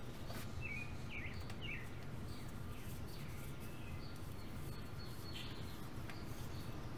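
Small birds chirping over a steady low outdoor background rumble, with a quick run of short chirps about a second in.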